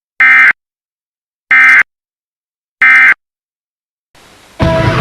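Emergency Alert System end-of-message data tones: three identical short bursts of the SAME digital header, each about a third of a second long and a little over a second apart, closing the NOAA Weather Radio tornado warning. Near the end, loud music cuts in.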